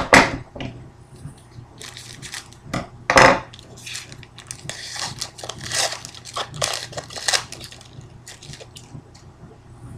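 A metal pair of scissors is set down with a clunk on a wooden table, followed by another knock about three seconds in. Then a foil hockey-card pack is torn open, and its wrapper rustles and crinkles in a quick run of short tearing sounds.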